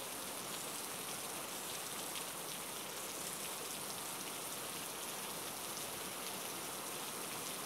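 Heavy monsoon rain falling steadily, an even, constant hiss of rain on water and umbrellas.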